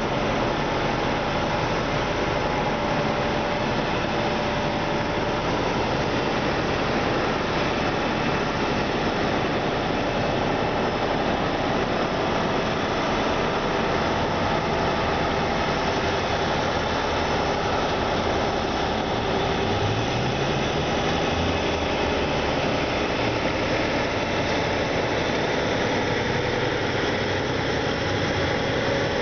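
Heavy diesel engine of a semi truck hauling an oversize load, running steadily under a constant rushing noise. Its pitch rises about two-thirds of the way through as the truck accelerates.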